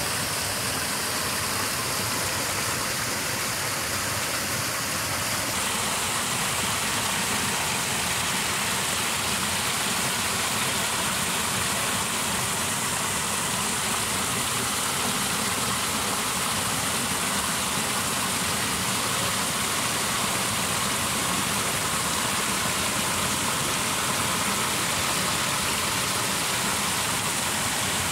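Steady rushing noise of water pouring down a mud bank and splashing into a muddy pool.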